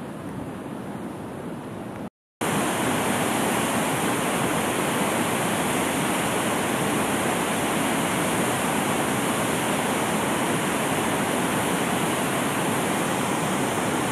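A waterfall rushing with a steady, loud noise that starts after a short break about two seconds in. Before the break there is a quieter, steady rushing hiss.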